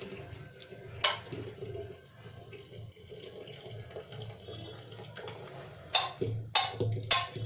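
Hot jaggery and ginger brew being strained into a flask, with liquid trickling. There is one sharp clink of a utensil about a second in and three more close together near the end.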